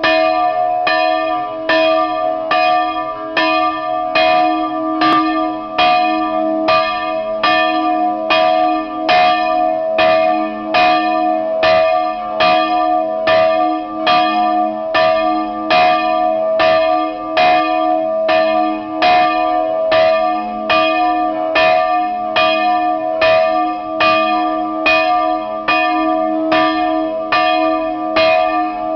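A 1951 church bell tuned to e'', cast in Briloner Sonderbronze, swinging and ringing, its clapper striking steadily about every three-quarters of a second. Each strike sounds over a sustained hum that carries through.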